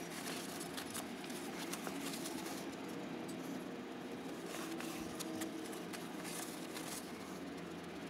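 Faint rustling and scratching of a paper towel rubbed around a doorbell button on a stucco wall, with scattered light clicks, over a steady low background hum.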